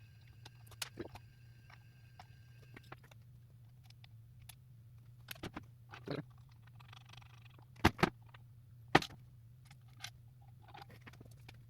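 Scattered clicks and knocks of parts and tools being handled during transmission reassembly, with three sharper knocks close together about two-thirds through, over a steady low hum.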